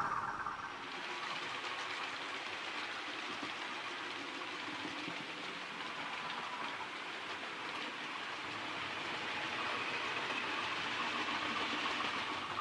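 00 gauge model train of Bachmann Mk1 and Hornby Pullman coaches running past on the layout's track: a steady whirr and light rattle of small wheels on the rails, growing a little louder near the end.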